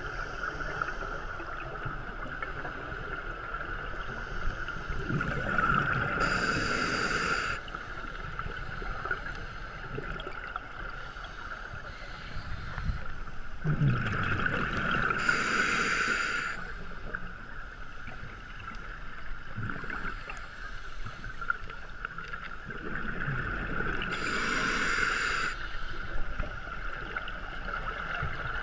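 Scuba regulator breathing underwater: three exhalations about nine seconds apart, each a burst of bubbles that gurgles and then hisses, over a steady hum.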